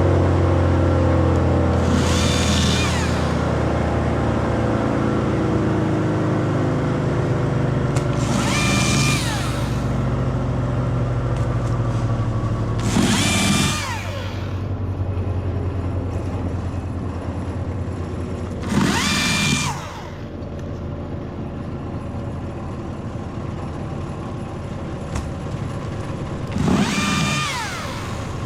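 Battery electric chainsaw triggered in five short bursts of about a second each, each one whining up and spinning down in pitch when the trigger is let go, as it cuts limbs. A steady low engine hum runs underneath.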